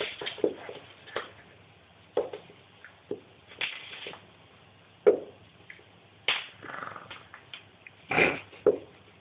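Italian greyhound giving short play growls in bursts while tugging a rope toy, with knocks and scuffles in between. The growls are playful, set off by a hand on her head during the tug game.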